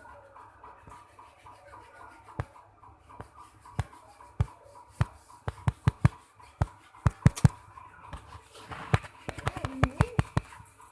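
Irregular sharp clicks and knocks that come faster in the second half, over a faint steady hum.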